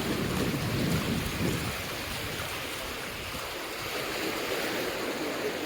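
Surf washing onto the beach as a steady hiss, with wind rumbling on the microphone for about the first second and a half.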